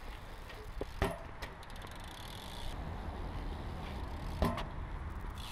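BMX bike tyres rolling on a concrete skatepark surface with a steady low rumble. A few sharp knocks come from the bike, the loudest about a second in and again past four seconds.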